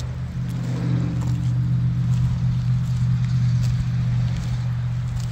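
Steady low engine hum, with scattered faint clicks over it.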